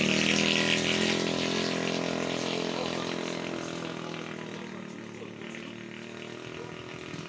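A motorcycle engine running at a steady pitch, slowly fading away.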